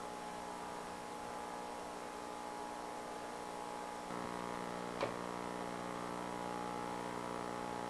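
Steady electrical hum with its overtones, stepping up slightly about four seconds in, with a single faint click about a second later.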